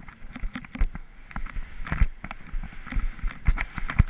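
Skis scraping and chattering over snow, with irregular knocks and thuds over a steady rushing hiss.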